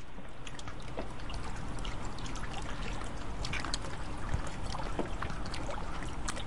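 Beer mixture of malt, sugar and water being stirred by hand with a plastic spoon in a plastic tub: steady swishing and sloshing of liquid, with scattered light clicks.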